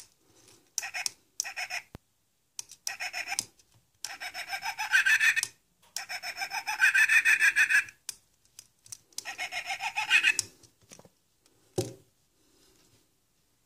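Tiny speaker in a Yoda-figure LED key chain playing its tinny, buzzy sound effect in several bursts of about one to two seconds each, with a single knock near the end.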